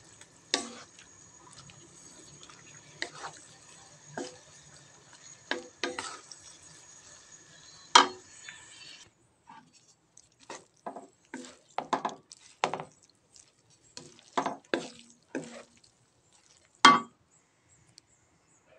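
Wooden spatula knocking and scraping against a nonstick pan while stir-frying noodles: irregular clacks, a few every couple of seconds, over a faint hiss that stops about halfway through.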